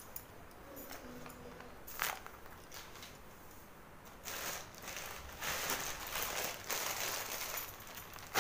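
Plastic grocery bags and packets rustling and crinkling as they are handled. A short rustle comes about two seconds in, then longer, livelier rustling from about four seconds in.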